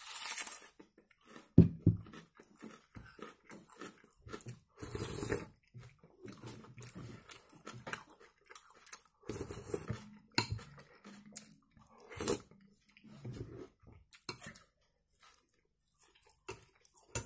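Close-up eating sounds: a crunching bite into a raw onion, then wet chewing and spoonfuls of thick rice soup, in irregular short bursts and clicks.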